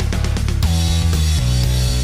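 Background rock music with a drum kit beating steadily under sustained guitar and bass notes.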